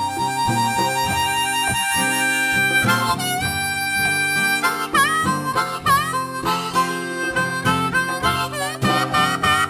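Harmonica solo over guitar in a song's instrumental break, with notes bent down and back up about halfway through.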